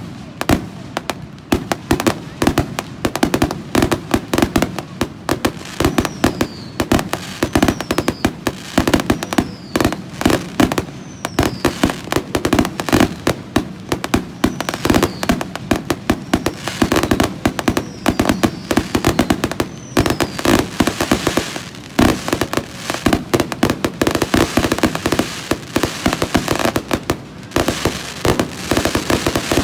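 Fireworks going off in a rapid, continuous barrage of bangs and crackles, many per second, with short falling whistles every second or two.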